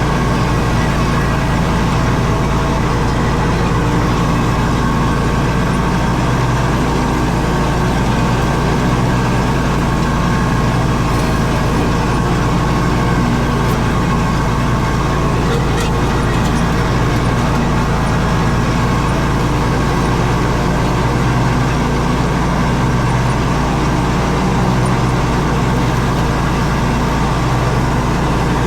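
Zero-turn mower engine running steadily at a constant speed.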